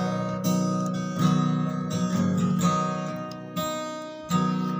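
Acoustic guitar strumming chords in an instrumental gap between the sung lines of a slow ballad.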